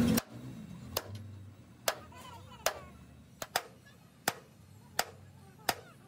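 Hand hammer blows in a steady rhythm, about one every 0.7 seconds, eight in all, with a quick double strike midway.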